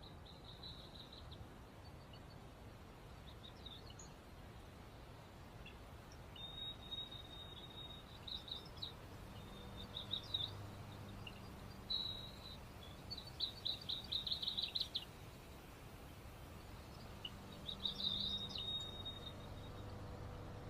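Night insects chirping and trilling in short, high-pitched bouts over a steady background hiss, with a run of rapid pulses about two-thirds of the way through.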